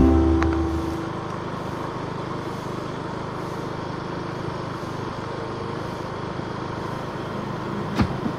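Motorcycle riding steadily along a road: an even engine and road-and-wind rush with no changes. Background music fades out in the first second and comes back just before the end.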